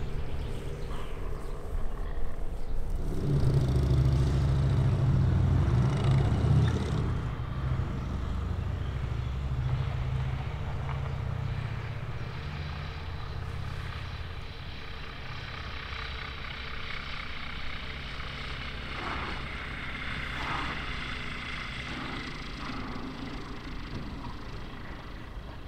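Piston engines of light propeller aircraft. A loud engine drone a few seconds in fades over the following seconds. From about the middle on, a quieter, steady engine sound carries a thin higher whine.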